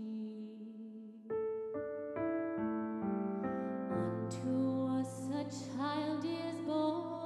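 Slow, gentle keyboard music: a held chord, then a line of single notes stepping along about a second in, with deep bass notes joining about four seconds in.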